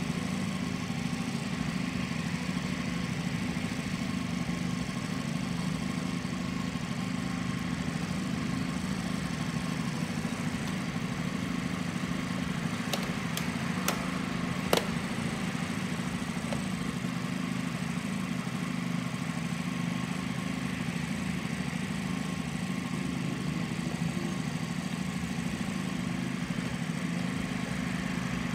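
Plastic side panel of a Yamaha NVX scooter being pressed into place, with a few sharp clicks of its clips snapping in about halfway through, over a steady low hum.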